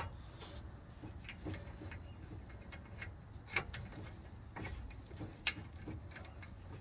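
A few irregular light metallic clicks and taps of tools and hardware as a brake caliper bolt is fitted on a pickup's rear disc brake, over a faint steady low hum.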